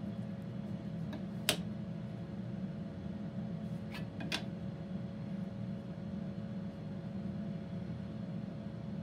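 Steady low hum of a fan-like background, with three light clicks as a steel ruler and pencil are handled against wooden legs on a workbench; the loudest click comes about one and a half seconds in, and two more follow close together a few seconds later.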